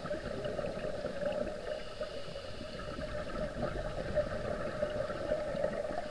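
Steady underwater ambience, a continuous bubbling, gurgling wash of water noise with a steady hum running under it.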